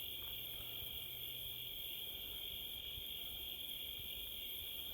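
Steady night chorus of crickets and other insects, a continuous even trilling.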